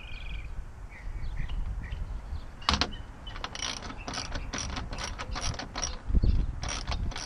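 Hand ratchet wrench clicking in quick repeated strokes while tightening the tonneau cover's mounting clamps to the truck bed rail. A single sharp click comes about two and a half seconds in, and rapid clicking follows from about three and a half seconds on.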